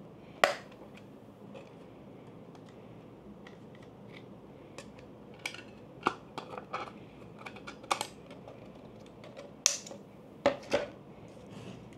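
Hands handling a JJC hard filter case and its variable ND filter: a sharp click about half a second in, then a scattered run of light clicks and taps, with the loudest clicks near the end.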